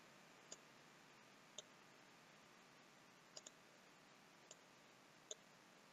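Near silence broken by faint, separate clicks of a computer mouse, about six in all, two of them in quick succession about three and a half seconds in.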